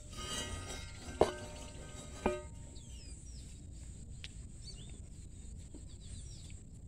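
Two sharp metallic clinks, about a second and two seconds in, each ringing on briefly, as metal is handled in wheel work. Faint bird chirps follow.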